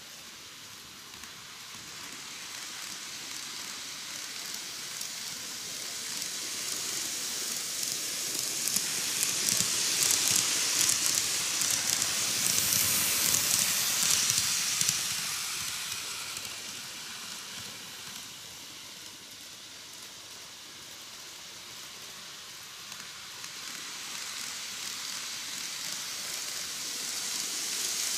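KATO N-gauge 185 series 200 model train running on its track: the whir and rolling hiss of the motor and wheels on the rails, with fine clicking, swelling as the train passes close about halfway through, fading, then growing again near the end as it comes round once more.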